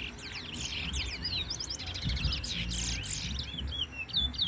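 Two caged songbirds singing against each other in a bird race: a fast, continuous run of high chirps and short whistled notes that rise and fall, overlapping one another.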